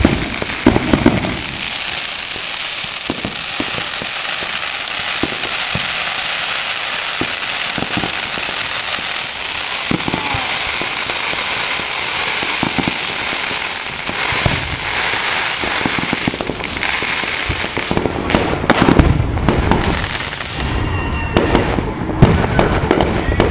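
Many fireworks going off at once: a dense, continuous crackling with scattered sharp bangs, turning to heavier booms over the last few seconds as aerial shells burst.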